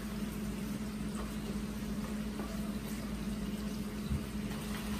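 Steady low hum and hiss, with faint handling of a small cardboard accessory box being opened and a soft knock about four seconds in.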